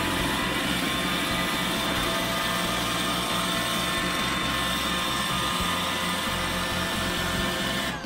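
iRobot Roomba 960 robot vacuum running, a steady whirring motor whine with several high tones, as it drives back to its charging dock after being sent home. The sound cuts off suddenly at the end.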